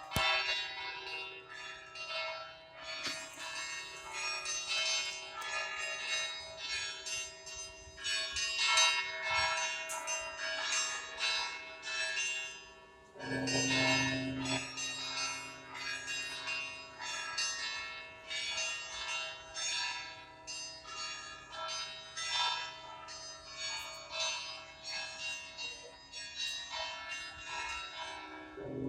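A set of bells ringing: a quick, continual peal of smaller, higher bells. A large low bell is struck about halfway through and again at the end.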